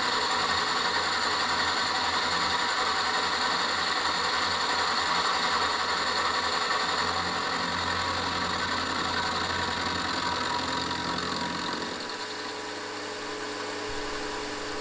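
Milling machine running with an end mill cutting a recess into the face of a metal flywheel: a steady machine whine with a cutting noise over it. The cutting noise drops away about twelve seconds in while the machine keeps running.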